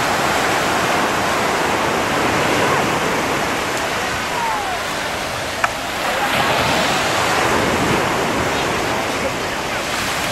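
Ocean surf breaking and washing on the shore, a steady noise that swells a little louder about six seconds in, with one sharp click a little past halfway.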